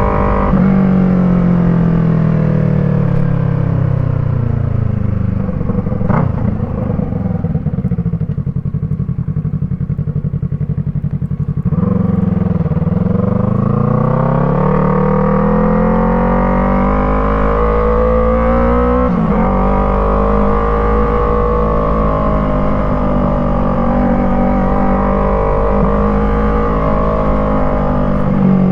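Yamaha MT-03 parallel-twin engine through an aftermarket Arashi exhaust, engine speed falling off over the first several seconds and staying low. About twelve seconds in it picks up and climbs steadily, then after a brief break near nineteen seconds it holds a fairly steady pitch.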